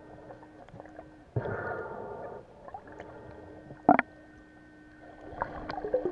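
Muffled underwater water noise picked up by a submerged camera, gurgling and sloshing as a swimmer moves over the sand, with a sharp knock about four seconds in and a crackle of bubbles building near the end. A steady low hum stops and starts underneath.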